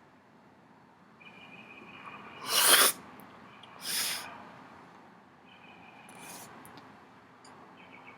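A person forcefully blowing out a lungful of marijuana smoke in two bursts of breath. The loud one comes about two and a half seconds in, and a weaker one follows about a second later.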